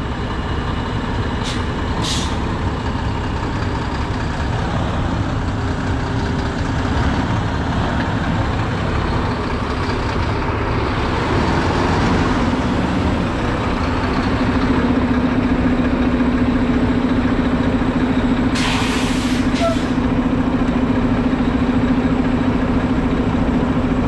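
Mack concrete mixer truck's diesel engine running steadily as the truck pulls up close, its low drone growing stronger in the second half. Short air brake hisses come twice near the start, and a longer air brake hiss comes about two thirds of the way through.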